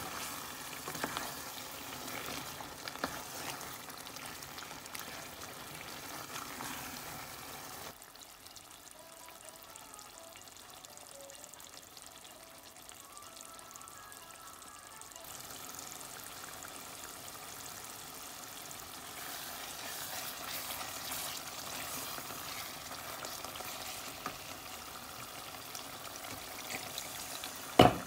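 Meat curry frying and sizzling in its oily sauce in a pan, with scattered small clicks. It goes quieter for several seconds in the middle, and a single loud knock comes just before the end.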